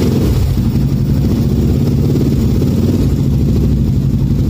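Honda CBX 250 Twister's single-cylinder four-stroke engine, bored out to 330cc, idling steadily through an aftermarket slip-on muffler.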